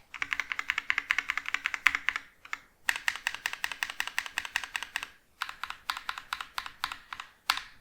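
Mechanical keyboard with NovelKeys Cream linear switches being typed on fast, in three bursts of rapid keystrokes with short pauses between, then one louder keystroke near the end.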